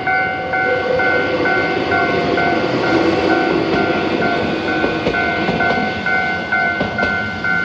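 Japanese level-crossing warning bell ringing at about two strokes a second while a train passes, the wheels clicking over the rail joints. The train's noise swells through the middle and fades toward the end, with the bell going on throughout.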